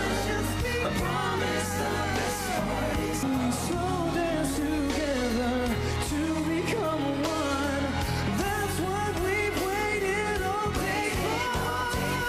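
A male pop singer singing live into a handheld microphone, his melody sliding between notes, over a band accompaniment with a steady bass and drum beat.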